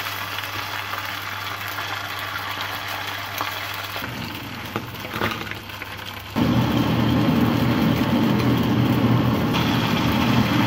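Hot oil sizzling steadily as square pieces of pho rice-noodle sheet deep-fry in a pan. After about four seconds the sizzle gives way, and from about six seconds in a louder steady low hum takes over.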